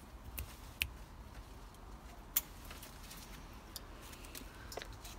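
Scattered light clicks and snaps of grapes being plucked and handled, about five in all, the sharpest a little over two seconds in.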